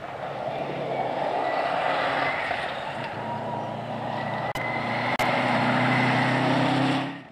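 Subaru Impreza rally car's turbocharged flat-four engine running hard on a gravel stage as the car approaches and passes, its note climbing a little past the middle, over a dense rush of tyre and gravel noise. Two sharp clicks about halfway through.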